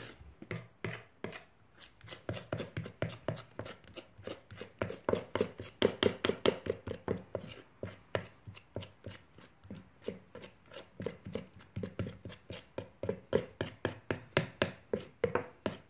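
Metal spoon stirring a wet glue-and-liquid-soap slime mixture in a plastic bowl, clicking and scraping against the bowl in quick even strokes, about three a second.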